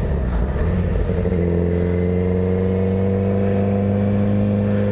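Motorcycle engine under way. It is unsettled through a gear change in the first second or so, then pulls steadily in gear, its pitch slowly rising.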